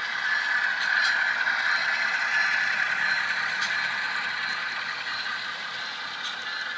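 Model train running past close by: a steady whir of the locomotives' motors and gears, with a few light clicks from the wheels on the track. Loudest about a second in, then slowly easing as the trailers roll by.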